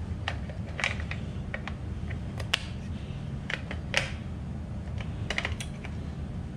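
Irregular sharp plastic clicks and taps from handling a pistol-grip RC transmitter as batteries are fitted into it, over a steady low hum.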